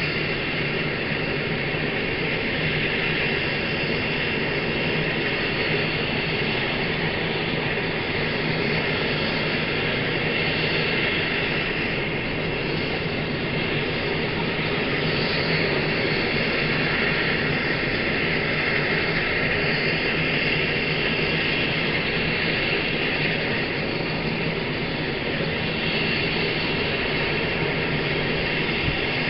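Bell 430 helicopter's twin turboshaft engines and main rotor running while it sits on the ground: a steady turbine whine over rotor noise, unchanging throughout.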